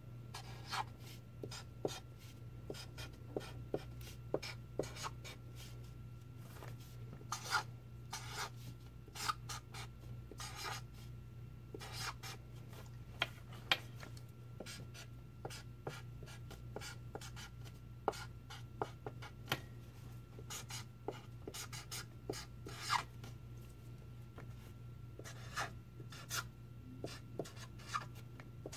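Sharpie permanent marker writing on paper: many short, irregular scratchy strokes, over a steady low hum.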